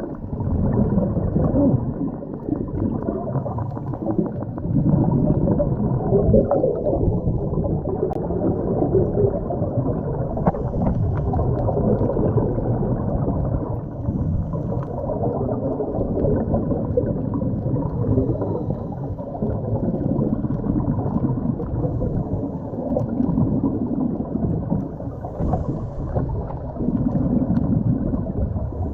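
Muffled rushing and gurgling of water as heard underwater by the camera's microphone: a steady low rumble that swells and fades every few seconds, with faint scattered clicks.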